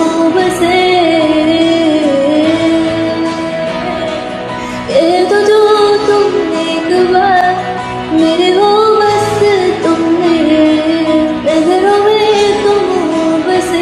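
Slowed, reverb-heavy Hindi pop-rock song: a female voice carries a slow melody in long arching phrases over the backing music.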